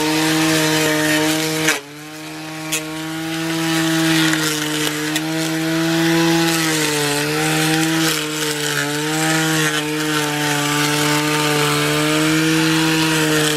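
Cordless 12-volt string trimmer running, a steady electric motor whine with the line swishing through thick dandelions and grass. The level drops suddenly about two seconds in and builds back up, and the pitch dips briefly a few times as the line bites into the growth.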